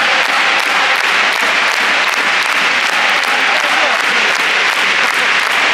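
Large football crowd in a stadium cheering and clapping: a loud, steady roar of many voices with regular claps running through it.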